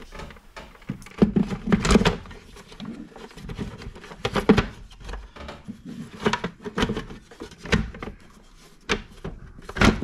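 Plastic parts of a Henry vacuum cleaner being handled and fitted back together: irregular clicks and knocks.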